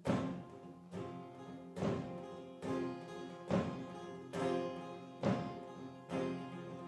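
Acoustic guitar chords struck hard about once a second, each left ringing before the next: an instrumental lead-in between sung lines.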